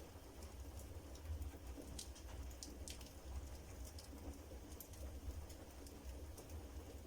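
Wood fire in a fireplace crackling: scattered sharp pops of burning firewood, a few close together around two to three seconds in, over a low steady rumble and a soft even hiss of rain.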